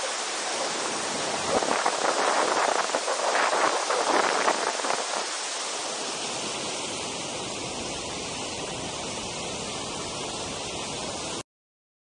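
A large waterfall pouring into a rock gorge: a steady, dense rushing roar, louder and more uneven in the first half, then evening out. It cuts off suddenly near the end.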